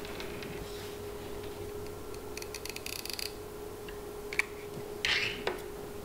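A hot glue gun is squeezed, its trigger clicking rapidly for about a second. Then come a sharp tap and a short rustle of paper as paper holly leaves are pressed onto a paper-plate wreath. A faint steady hum runs underneath.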